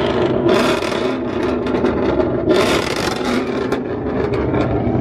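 A Ford Mustang's engine running loudly through its exhaust, with two strong bursts of crackle about half a second and two and a half seconds in and scattered sharp pops in between.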